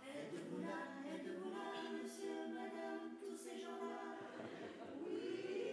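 A cappella vocal quartet of two men and two women singing together in harmony, with no instruments.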